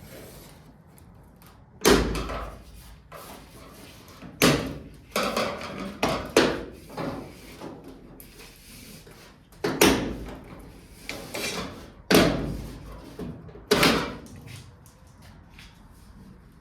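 Chrome side trim being worked off a 1978 Ford F-100 pickup's bed side: about eight sharp knocks and clunks at uneven intervals, each ringing briefly.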